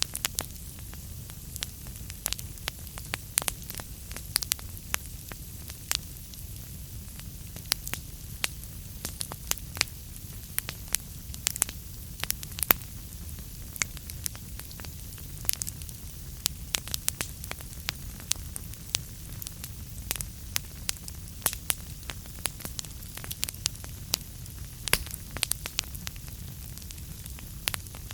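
Wood fire crackling in a fireplace: frequent irregular sharp pops and snaps over a steady low rumble of burning.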